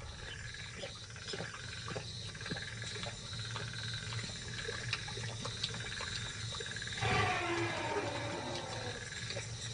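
Lions drinking at a waterhole at night: wet lapping and clicking at the water, with a change in the sound about seven seconds in, over a steady background of insects chirping.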